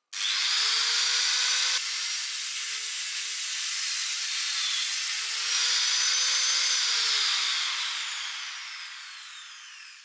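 Angle grinder in a chop-saw stand cutting through square steel tube with an abrasive cut-off disc: a loud, steady grinding whine whose motor note sags as the disc bites. Near the end the sound fades and the whine falls in pitch as the disc winds down.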